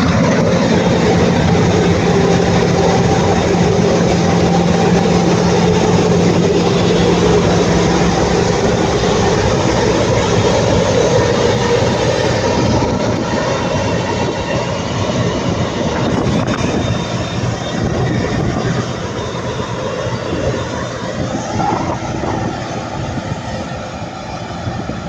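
Massey Ferguson 9380 Delta tracked combine harvester running under load while harvesting wheat: a loud, steady mechanical drone. A steady low hum stops about eight seconds in, and the sound eases off a little over the last few seconds.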